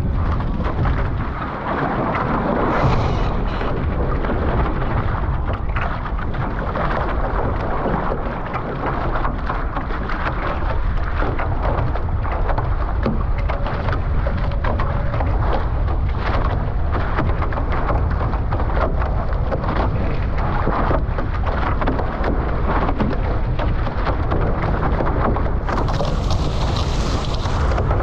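Strong wind rumbling on the microphone over rushing water as a Nacra 15 sailing catamaran sails along, with a brighter hiss coming in near the end.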